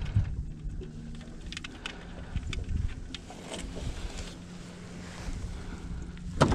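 Wind rumbling on a GoPro's microphone, with rustling and a few light clicks as a catfish in a cloth bag is hooked onto a hand-held dial scale. A faint low steady hum runs underneath.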